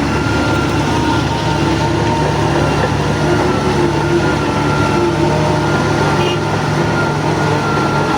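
Shantui DH17 bulldozer running steadily under load: a diesel engine drone with a thin high whine over it that fades and returns.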